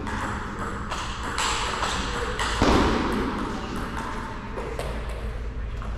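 Table tennis rally: the celluloid-type ball clicking off paddles and table in an irregular series of sharp ticks, with one louder knock a little under halfway through.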